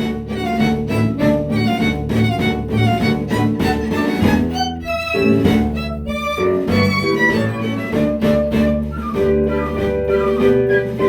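An instrumental ensemble playing music: a steady plucked rhythm under a melody on bowed strings, with a short break in the rhythm about halfway through.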